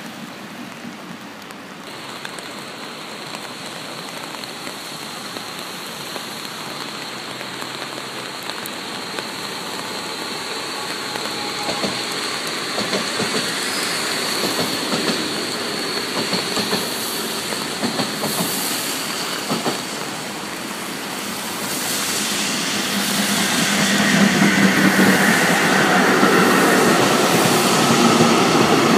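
Trains rolling past on a multi-track line: a double-deck regional electric train passes with its wheels clicking over rail joints. From about two-thirds of the way in, a freight train of tank wagons clatters by, louder than anything before it.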